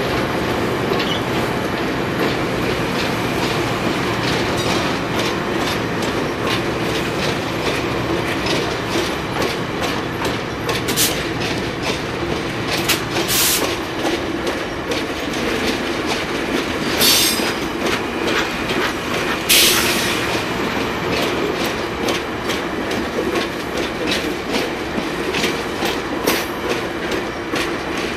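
Stainless-steel passenger cars of VIA Rail's Canadian rolling slowly through a siding, wheels clicking over the rail joints in a steady clickety-clack, with a few short high-pitched squeals from the wheels.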